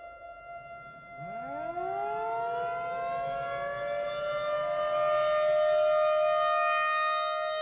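Civil defense warning sirens: one holds a steady wail while a second winds up about a second in, rising in pitch over a few seconds and settling into a steady wail alongside it.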